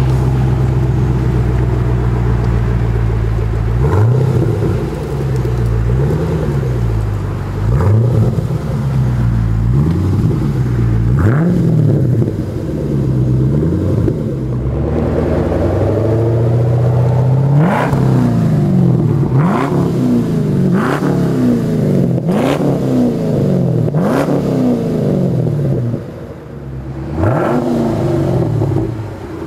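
2011 Chevrolet Camaro SS 6.2-litre V8 through a Kinney's "Street-Demon" 2.5-inch exhaust with X-pipe and stainless mufflers, idling steadily for the first few seconds, then revved over and over, each rev rising and falling back. The revs come quicker in the second half, with a short drop back to idle near the end.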